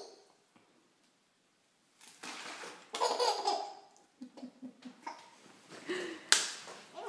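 A young baby laughing in short bursts after a quiet first two seconds, with a quick run of short laughs a little after the middle. A single sharp click near the end is the loudest sound.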